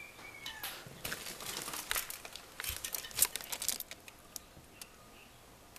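Crinkling and rustling handling noise with scattered light clicks as a homemade incubator box, wrapped in tape with aluminum foil lining, is opened. Most of it falls in the first four seconds.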